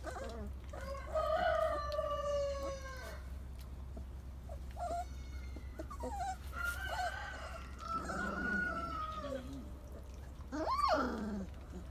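Great Pyrenees puppies whining and howling in drawn-out calls: a long one falling in pitch about a second in, more whines in the middle, and a short howl that rises and falls near the end.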